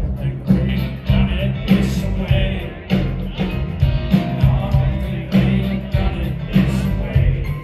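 Live country band playing loudly, with a steady drum beat, bass and electric guitar under a male lead vocal.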